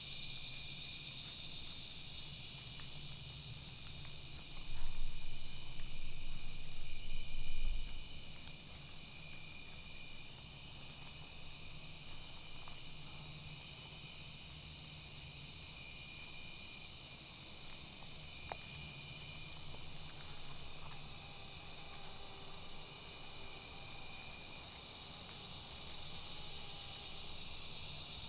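An evening chorus of insects: a steady high-pitched hiss with a fainter trilling that comes and goes. It eases a little in the middle and swells again near the end, with a couple of faint rustles in the first several seconds.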